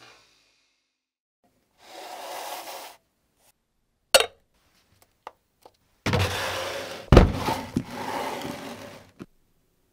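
Workshop handling sounds. A short scrape comes first, then a sharp knock and a few light ticks, then a longer stretch of rubbing and scraping with a loud knock in the middle of it.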